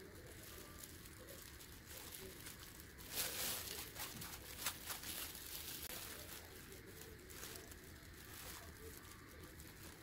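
Disposable plastic gloves crinkling and rustling as hands press potting soil around a seedling in a plastic pot, with a burst of louder rustles and small clicks about three to five seconds in.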